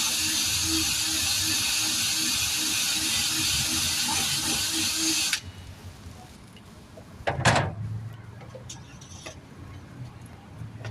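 Air-powered tire buffer with a buff wheel running, buffing the inner liner around the hole before a patch goes on: a steady loud air hiss over a pulsing hum, which stops abruptly about five seconds in. About two seconds later comes a brief loud burst, then a few faint clicks.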